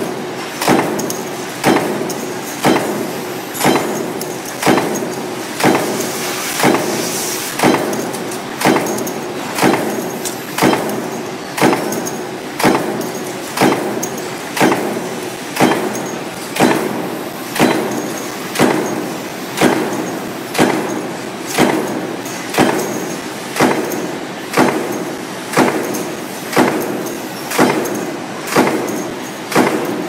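A production machine working a steel die for zinc alloy furniture handles, clanking in a steady rhythm of about one sharp knock a second over a constant machine hum.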